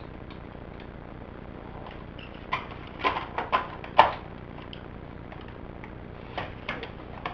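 Plastic clicks and knocks of a laptop battery pack being slid and latched into a Toshiba laptop: a quick cluster of sharp clicks starting about two and a half seconds in, the loudest about four seconds in, then a few softer clicks near the end.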